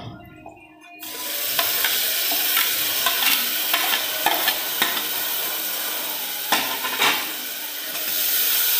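Chopped tomato frying in hot oil with onion, sizzling, the hiss starting suddenly about a second in as it takes the heat. A spatula knocks against the pan now and then as it is stirred.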